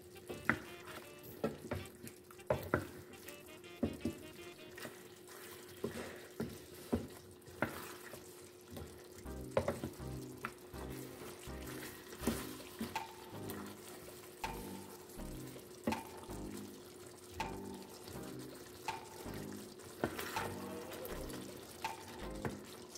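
Wooden spoon stirring a brown chicken stew in a stainless steel pan, knocking and scraping against the pan about once a second, with the stew sizzling as it cooks.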